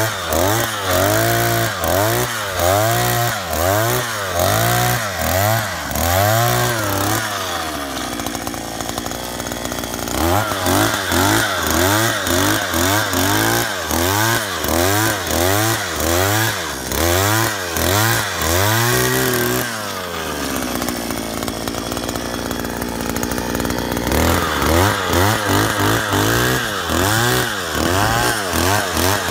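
49.9 cc single-cylinder two-stroke engine of an Oshima 2P handheld earth auger running under load as the 20 cm bit drills into soil. Its pitch rises and falls over and over, about one and a half times a second. It twice eases off to a steadier, lower run, about a quarter of the way in and again about two-thirds through.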